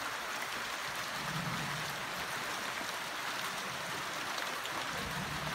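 Steady rain falling on the trees and ground, an even hiss with no breaks.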